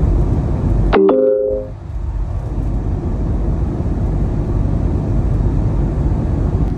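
Steady road and tyre noise inside a moving car's cabin. About a second in, a brief chime-like ringing tone breaks in over it.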